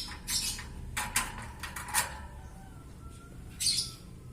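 Bird cage being handled: a few short clicks and rattles, one about a second in, one at two seconds and one near the end.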